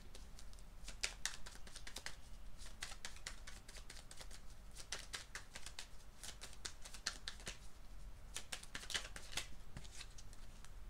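Tarot deck being shuffled by hand: a quick, uneven run of sharp card clicks and flicks.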